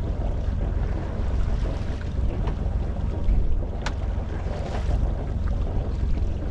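Wind buffeting the microphone over the steady low running of a sailboat's engine under way, with one sharp click about four seconds in.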